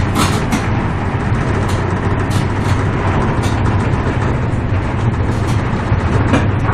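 Cabin noise of an ICE high-speed train running at about 168 km/h: a steady low rumble and hum under a rushing noise, with scattered brief ticks.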